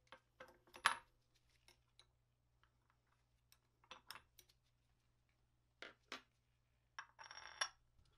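Small steel parts of a lathe turret tailstock and a hand tool being handled and fitted: faint scattered metal clicks and taps, with a short metallic rattle that has a ringing note near the end.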